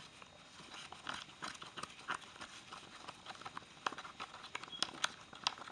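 Plastic spoon stirring Bondo body filler and hardener in a plastic cup, making irregular quick clicks and scrapes against the cup.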